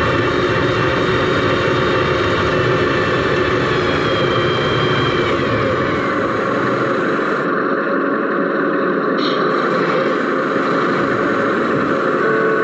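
RC model Mercedes Actros SLT truck running, heard from inside its cab: steady mechanical running with whining tones. One whine falls in pitch about five seconds in, and the deep part of the sound drops away about two seconds later.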